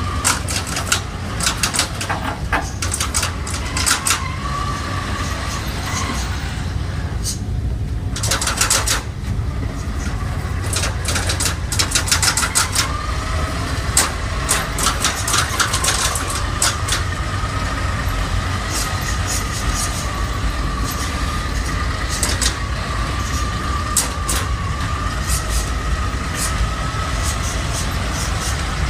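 Small electric robot cars driving on a tiled floor: a steady low rumble with a thin, slightly wavering whine of the drive motors that settles in a little before halfway, and many short clicks, thick in the first half.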